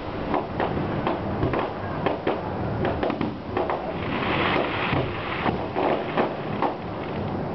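Aerial fireworks display: a rapid, continuous run of bangs and pops, with a crackling hiss about four seconds in.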